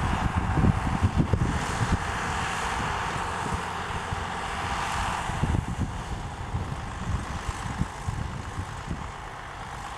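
John Deere 4430 tractor's six-cylinder turbo diesel running steadily as it works a New Holland 851 round baler, getting a little quieter near the end.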